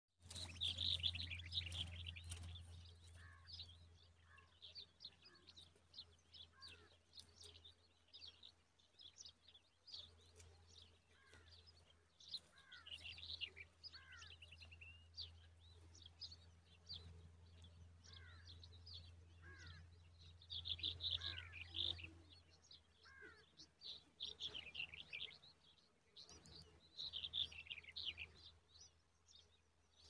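Common babbler nestlings begging at the nest while being fed: faint bursts of rapid, high chattering calls that come and go, with short down-slurred bird notes repeated every second or two. A low steady hum runs underneath.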